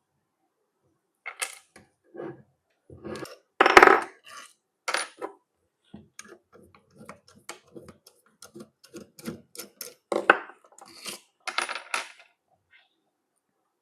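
Small metal parts and tools being handled: irregular clinks and knocks with short ringing. The loudest come about four seconds in and again near ten seconds.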